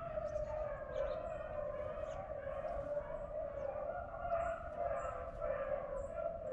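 A pack of beagles baying continuously, several voices overlapping in a wavering chorus. This is the sound of hounds running a rabbit's scent trail.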